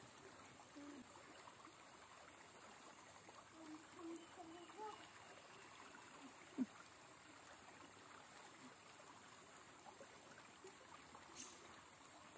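Near silence: faint running water of a stream, with one sharp click about six and a half seconds in.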